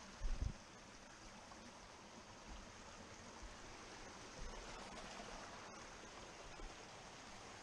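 Small mountain stream rushing and splashing steadily over rocks and little cascades. A few dull low thumps cut through it, the loudest just after the start.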